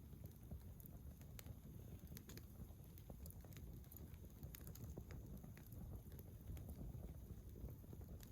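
Swedish torch log fire burning: faint, scattered crackles and pops at irregular intervals over a low, steady rumble.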